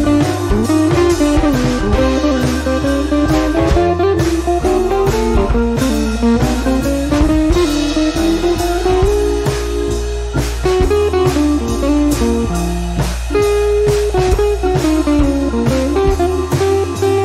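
Background music: a guitar-led blues-style instrumental over bass and drums, with a steady beat.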